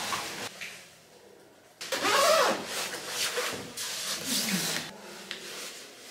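Puffer jacket's nylon shell rustling in a series of swishes as it is pulled on and zipped up.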